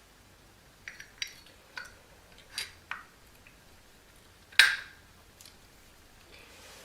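Parts of a door closer mechanism clicking and clinking as they are handled and fitted together: a string of short clicks, then one louder, sharper click about four and a half seconds in.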